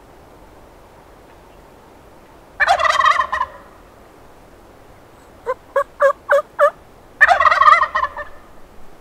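Merriam's wild turkey gobbling loudly, two rattling gobbles of about a second each. Between them comes a quick run of five short turkey yelps.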